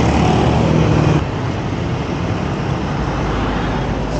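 Road traffic noise from a busy street, a steady rumble of passing vehicles, louder for about the first second and then settling lower.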